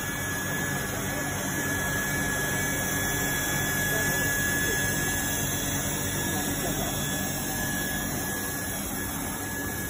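LIUDU TOP3400C automatic hot-air PVC welding machine running: a steady rushing hiss from its hot-air blower, with a thin high whine held throughout.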